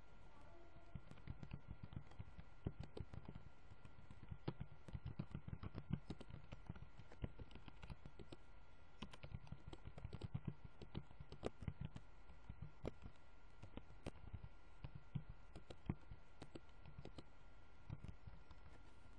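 Faint typing on a computer keyboard: irregular runs of keystrokes with short pauses between words and lines, over a faint steady hum.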